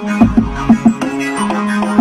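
R&B beat played on a keyboard workstation: a held bass note under short plucked-sounding notes and drum hits in a steady rhythm.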